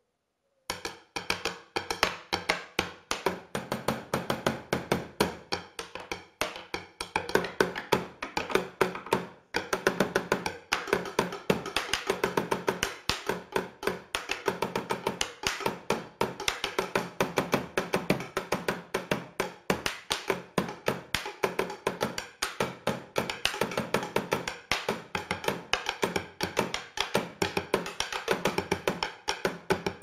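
Chopsticks drummed on a wooden tabletop: a fast, steady stream of sharp wooden clicks in a rhythmic pattern, starting about a second in.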